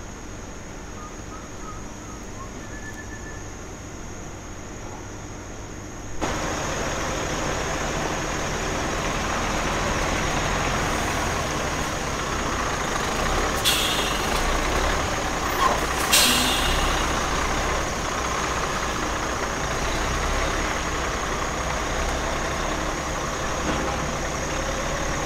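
Heavy lorry engine running steadily, louder from about six seconds in. Two short air-brake hisses come about halfway through.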